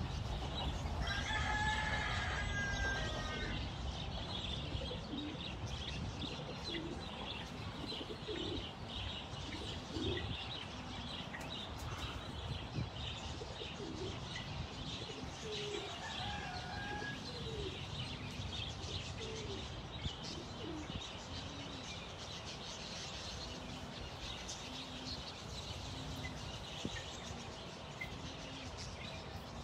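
Mixed farmyard fowl calling: a rooster crows about a second in, a second shorter call comes around the middle, and a run of low, evenly spaced clucking calls fills the second half. Small birds chirp steadily throughout.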